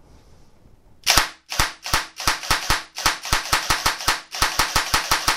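Open airsoft V3 AK gearbox with an ASCU Gen5 electronic trigger unit, run on a 7.4 V battery, firing dry on semi-auto. It gives a rapid series of single shots, each a short sharp clack, starting about a second in at about four a second and coming faster toward the end. The shots come quickly on the trigger, a sign of a much improved trigger response even on 7.4 V.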